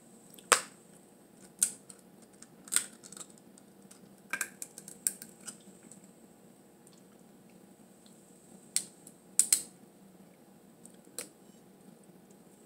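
Blue crab shells being cracked and picked apart by hand: sharp, irregular snaps and clicks, a quick cluster of them about four to five seconds in and a close pair near the ninth second.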